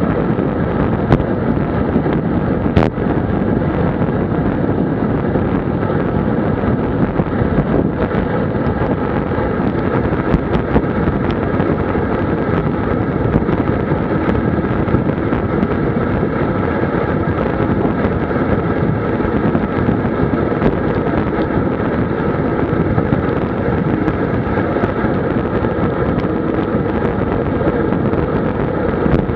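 Steady wind rushing over a Garmin VIRB action camera's microphone on a road bike descending at about 55–60 km/h, mixed with road and tyre noise. A couple of sharp clicks sound in the first few seconds.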